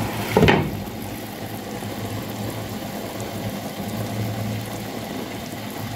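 Pot of beetroot soup boiling on an electric stove, a steady bubbling hiss. About half a second in there is a short knock.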